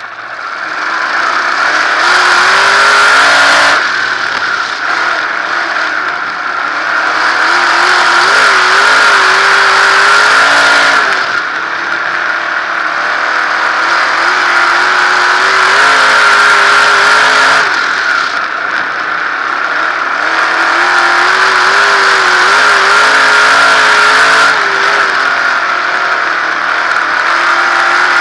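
A 360 sprint car's V8 engine, recorded close on board, running hard on a dirt oval. It builds up to full throttle about a second in. After that it surges and falls back in a repeating cycle, easing off about every six to seven seconds as the driver lifts for each end of the track.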